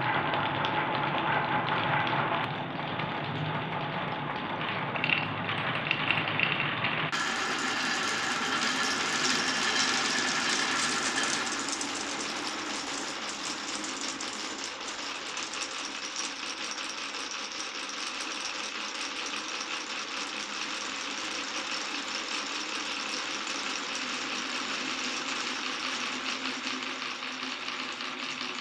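Glass marbles rolling and rattling down a wooden and plastic marble-run course, a continuous clatter with a few sharper clicks around five to six seconds in. About seven seconds in, the sound turns brighter.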